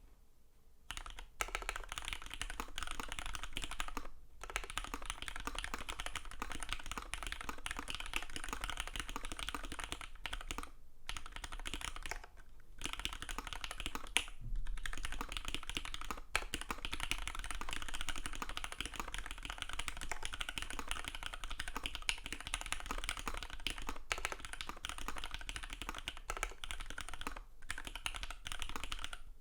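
Continuous fast typing on a custom mechanical keyboard with an aluminium plate and linear Cherry Hyperglide Black switches, undamped, a dense run of keystroke clacks broken by a few short pauses.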